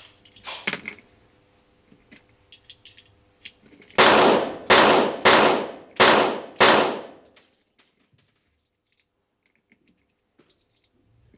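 Five pistol shots fired in quick succession, about two-thirds of a second apart, each trailing off in a short echo. A brief handling rustle and a few faint clicks come before them.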